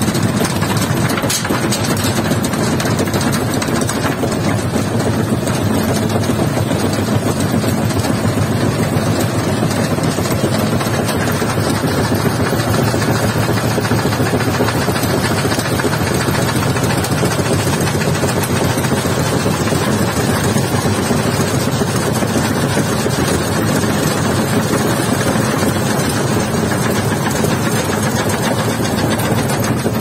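Zanussi front-loading washing machine running with its drum spinning fast: a loud, steady mechanical whir.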